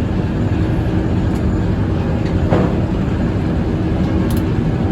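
Circular sawmill running: a steady, loud mechanical rumble with a faint hum from the spinning head saw and its drive. A brief sharper sound about two and a half seconds in.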